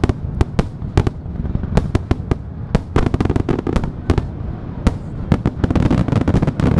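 Fireworks barrage: many shells bursting in quick succession, several bangs a second over a continuous low rumble. The bangs grow denser near the end.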